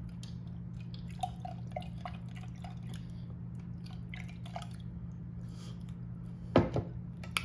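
Lemon butter sauce dripping and trickling from a tipped jar onto lobster tail, a scatter of small wet drips over a steady low hum. A sharp thump about six and a half seconds in.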